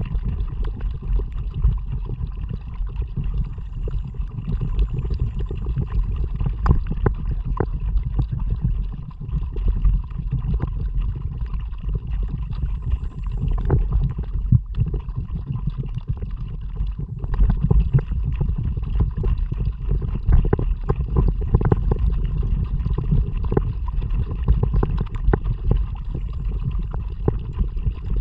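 Kayak moving through water under paddle: a steady wash of water with low wind rumble on the action camera's microphone, broken by scattered small splashes and knocks.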